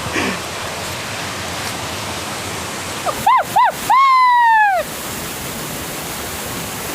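Waterfall making a steady rushing roar. About three seconds in, a loud high-pitched call rises over it: two short arching notes, then a longer falling one.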